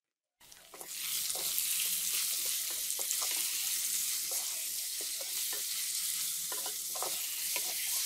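Raw hand-minced chicken keema sizzling in hot oil in a metal pot, just added to browned onion and garlic, while a wooden spoon stirs it with short scraping clicks against the pot. The sizzle starts abruptly about half a second in and then holds steady.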